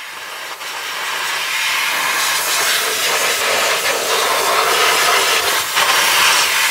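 Compressed-air blow gun blowing out a Bendix air disc brake caliper with the pads out: a loud, steady hiss of air that builds over the first second or so, then holds.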